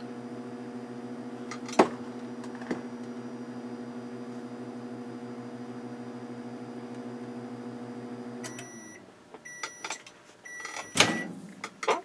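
Repaired Breville BM0734XL microwave oven running with a steady, even hum, the normal sound of a working oven and no longer the loud humming its fault had caused. A sharp click comes about two seconds in. The hum stops about eight and a half seconds in, followed by three end-of-cycle beeps, then a loud clunk near the end as the door is opened.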